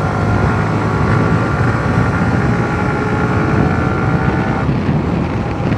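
Yamaha sport motorcycle under way at about 62 km/h: steady engine and road noise heavily mixed with wind rumbling on the helmet or bike-mounted microphone. A faint steady whine drops out about four and a half seconds in.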